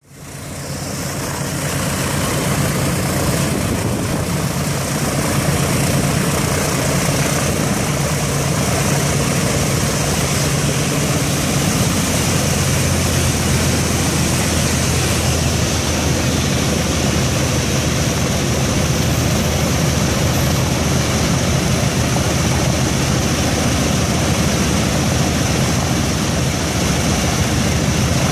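Boeing B-17's Wright R-1820 Cyclone radial engines running at idle with their propellers turning: a loud, steady drone that fades in over the first second or two, its low note shifting about twelve seconds in.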